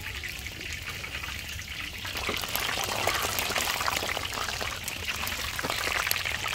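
Battered fish strips deep-frying in hot oil in a disca, at about 180 °C: a steady, dense sizzle with many small crackles.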